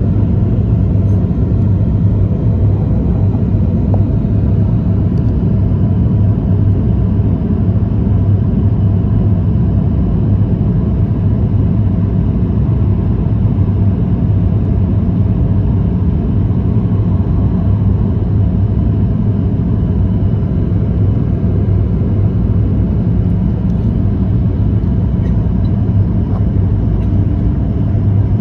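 Steady, deep cabin rumble inside a Boeing 737-800 in flight on approach: the CFM56 engines and the airflow over the fuselage heard through the cabin wall, with a low hum running under it.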